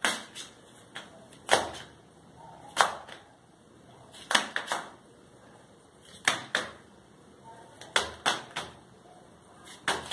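Sharp clicks, coming singly or in quick groups of two or three, about every one and a half seconds.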